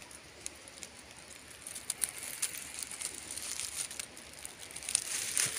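Footsteps on dry leaf litter and twigs, with scattered crackles and snaps that grow louder and closer together near the end.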